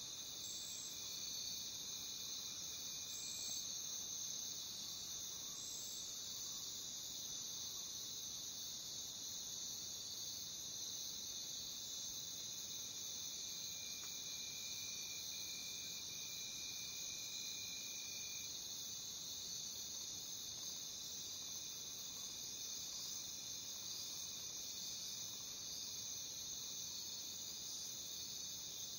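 Dense, steady chorus of crickets in a jungle, a continuous high chirring, with a fainter thin trill from another insect weaving in and out, clearest in the middle.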